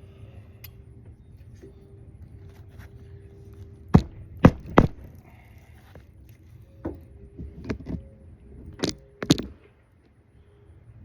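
Sharp knocks of a metal tool on asphalt roof shingles during a shingle repair: three hard strikes in quick succession about four seconds in, then several softer knocks and clicks later on, over low outdoor rumble.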